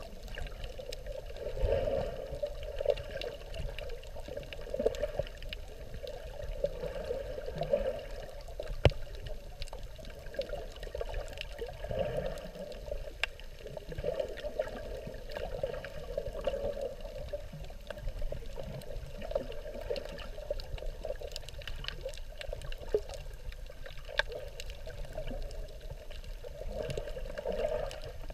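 Underwater ambience heard with the microphone submerged: a muffled, wavering wash of water noise with a low rumble and scattered faint clicks.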